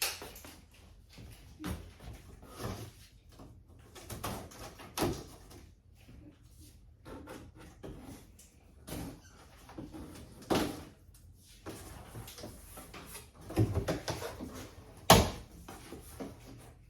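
A large cardboard shipping box being opened and handled: irregular scraping and rustling of cardboard with scattered knocks and thumps, the sharpest one near the end.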